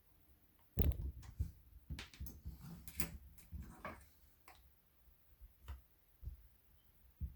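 Hard plastic and metal parts of a paintball marker being handled: a quick run of clicks and knocks, then a few single knocks spaced out near the end.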